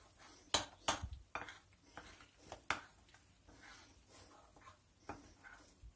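Metal spoon clinking and scraping against a porcelain bowl while stirring cornstarch into yogurt: a handful of sharp clinks at irregular intervals with soft scraping between.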